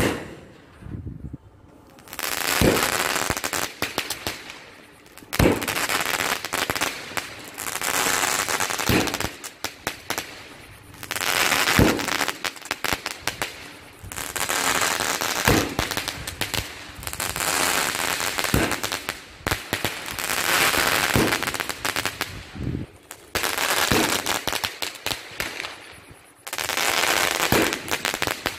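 A 12-shot sky-shot firework cake firing its shots one after another, roughly every three seconds: each a sharp launch pop followed by a few seconds of hiss as the spark trail rises.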